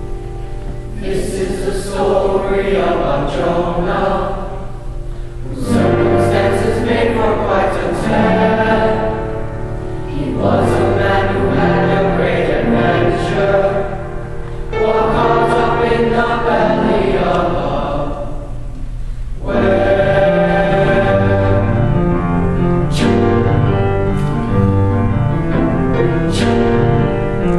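Boys' choir singing with upright piano accompaniment, the voices entering about a second in over the piano and moving in phrases of a few seconds with brief breaths between them.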